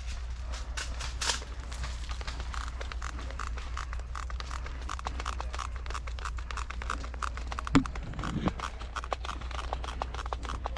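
Close rustling and crackling with irregular crunches, like clothing or gear rubbing on the microphone, over a steady low rumble, with one sharper knock about eight seconds in.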